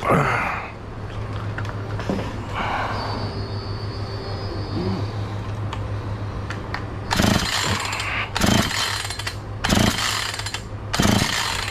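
Husqvarna 445 two-stroke chainsaw engine running at a steady idle, then blipped up to speed about five times in quick succession, roughly once a second, from just past halfway. The carburettor is being tuned on an engine that is running lean.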